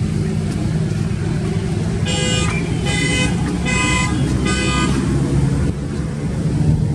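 A steady low motor drone, with four short, evenly spaced horn-like toots of unchanging pitch near the middle.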